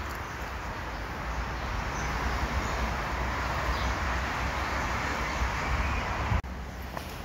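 Steady outdoor noise, a rushing hiss with a low rumble underneath, that drops suddenly about six and a half seconds in.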